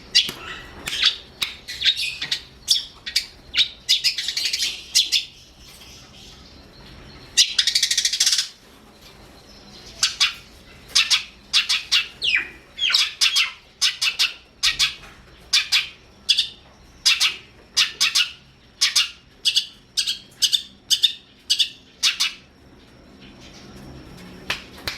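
Long-tailed shrike (cendet) singing: rapid chattering phrases at first, a harsh rasp about eight seconds in, then a long run of short, sharp, high calls repeated about twice a second, with a brief pause near the end.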